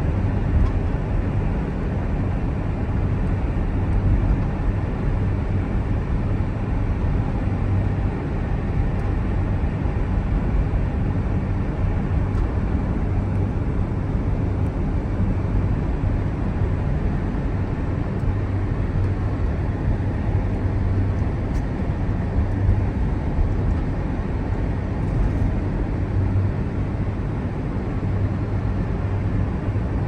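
A car driving, heard from inside the cabin: a steady low drone of engine and tyre noise on a snowy, slushy road.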